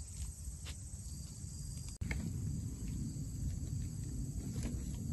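Outdoor field ambience: a steady low rumble with a faint, continuous high insect trill and a few light clicks. The low rumble jumps abruptly louder about two seconds in.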